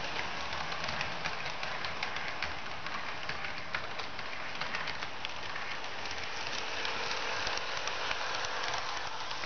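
Model train running on a layout's track: a steady rattling hiss full of fine clicks from small wheels on the rails, with a faint motor hum joining about six seconds in.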